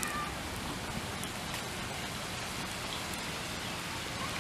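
Water fountain splashing steadily, an even hiss of falling water.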